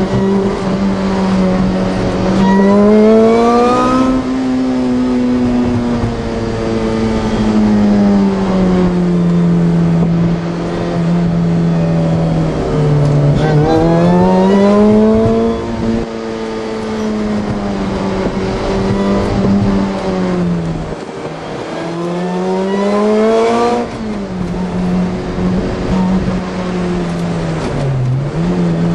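Supercharged car engine (Ronin supercharger kit at 9.7 psi boost) heard from inside the cabin, revving up hard three times as it pulls out of corners and easing off in between.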